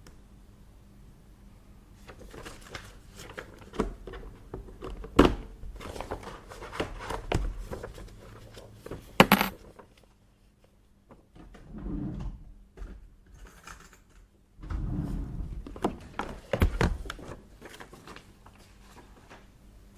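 Small hard office items being handled and set down: a busy run of clicks, clinks and knocks with a few sharp strikes, a short pause, then two more bursts of handling.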